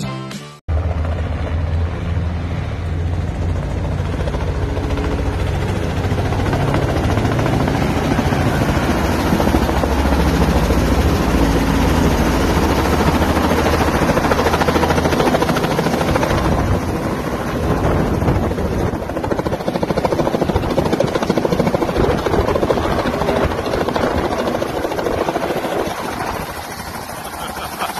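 Light helicopter running with its main rotor turning: a steady, fast low beat of the rotor blades under engine noise.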